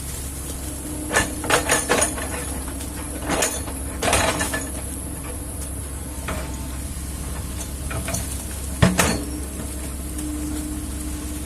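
Kobelco hydraulic excavator's diesel engine running steadily, with several clusters of sharp metallic clanks and knocks from the working machine, the loudest about nine seconds in.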